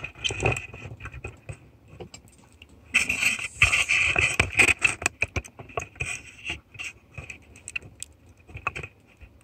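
Small metal and plastic parts of a scale RC crawler chassis clicking, knocking and scraping on a workbench as the frame rails and axles are handled and turned around. A denser stretch of rattling and scraping comes about three seconds in and lasts about two seconds.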